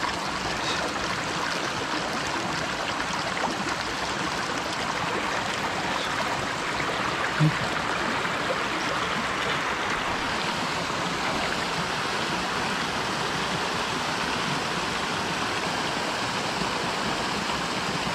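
Shallow mountain stream running over rocks: a steady rush of flowing water, a little hissier after about ten seconds.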